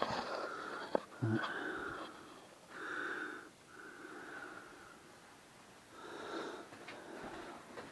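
A person breathing close to the microphone, about five separate breaths, with a single sharp knock about a second in.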